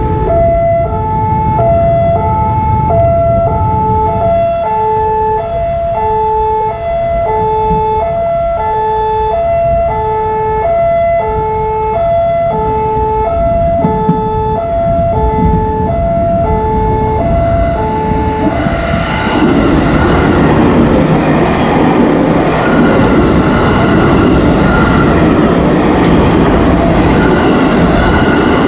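Level-crossing warning alarm from a loudspeaker on the crossing signal, sounding a repeating two-note pattern at about two notes a second. About two-thirds of the way in, an electric commuter train (KRL) arrives and rushes past close by, and its noise covers the alarm.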